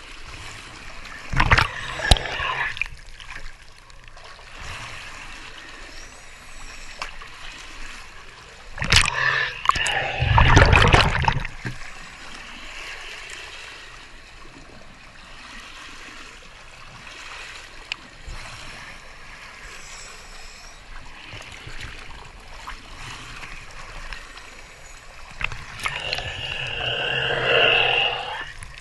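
Water splashing and churning as a Remora Solo rotary hull-cleaning brush scrubs a boat hull at the waterline. A steady wash of water runs throughout, with louder surges of splashing about two seconds in, around ten seconds in, and near the end.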